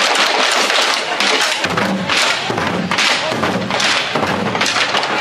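Ensemble of red Vietnamese festival barrel drums beaten with sticks by a group of drummers, a fast, dense run of strikes played together. Lower drum strokes join about a second and a half in.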